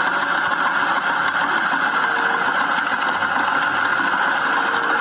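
Steady, unbroken spray-washing noise as a dirty toy construction vehicle is cleaned.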